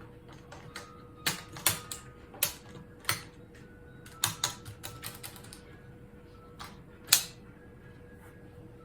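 A series of irregular sharp clicks and knocks, some with a brief metallic ring, the loudest about seven seconds in.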